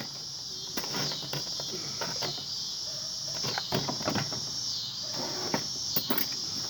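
Steady high-pitched insect drone that swells and dips every second or so, with scattered light clicks and taps throughout.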